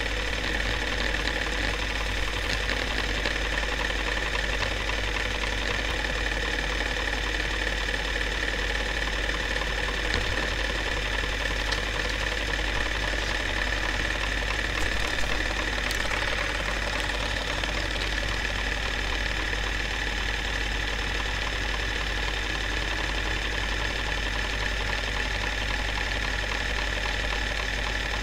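A film projector running steadily, its mechanism whirring and clattering evenly under a constant high whine.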